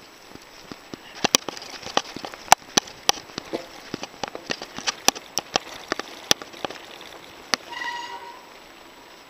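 Mountain bike rolling fast over a bumpy dirt trail, heard through a handlebar-mounted camera: irregular sharp knocks and rattles over a steady rolling hiss. A short high squeak comes near the end.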